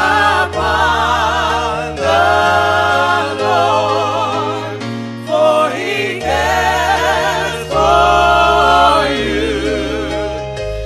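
Gospel music: a choir singing long held notes with vibrato over a low bass accompaniment whose chords change every couple of seconds.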